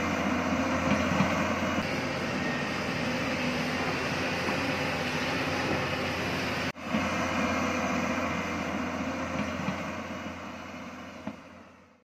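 Hyundai crawler excavator's diesel engine running steadily under load as the machine digs, with a brief break about seven seconds in, then fading out near the end.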